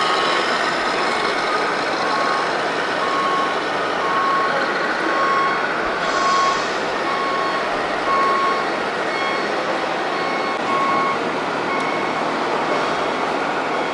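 Truck reversing beeper on a radio-controlled model truck's sound module, beeping steadily, somewhat under two beeps a second, over a steady background hubbub. A short hiss about six seconds in, like an air-brake release.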